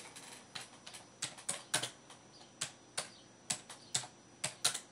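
Typing on a computer keyboard: irregular key clicks in short runs with brief pauses between them.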